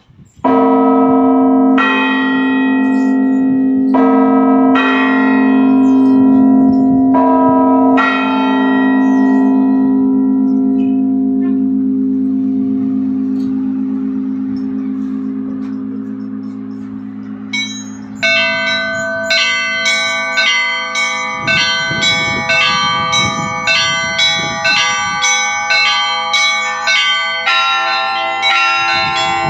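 Cathedral church bells rung by hand. Deep bells are struck several times over the first eight seconds or so and left to ring out and fade. From about eighteen seconds in, a quicker run of smaller, higher bells follows, about two strikes a second.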